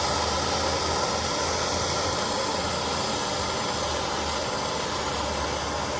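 Handheld gas torch flame hissing steadily while heating a fluxed copper pipe joint before soldering.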